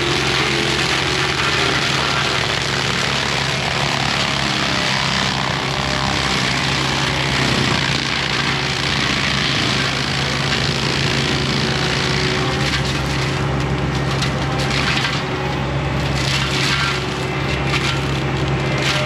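Forestry mulcher head on a John Deere 60P mini excavator grinding through brush and wood, over the steady drone of the excavator's diesel engine and hydraulics. Bursts of cracking and splintering come in the second half.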